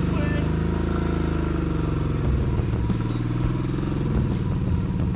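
Motorcycle engine running steadily under way, a low rumble that rises and falls a little in pitch.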